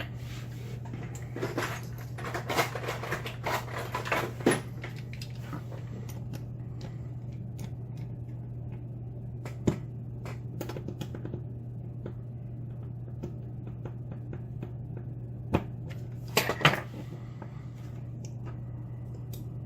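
Small metal clicks and scrapes as a clip-removal tool works the retaining clip off the back of a lock cylinder's plug, busiest in the first few seconds, then a few single clicks later, over a steady low hum.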